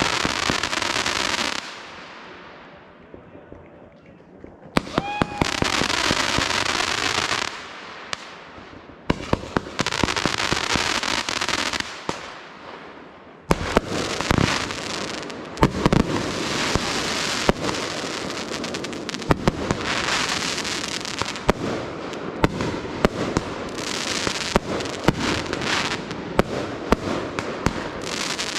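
Fireworks going off: three separate waves of dense crackling with sharp bangs, each dying away, then from about halfway in a continuous barrage of crackling and many sharp bangs.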